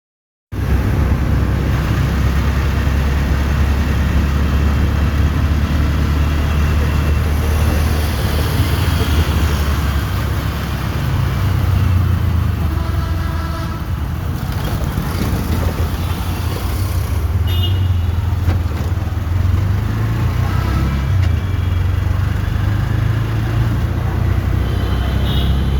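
Busy road traffic: a steady low rumble of engines and tyres.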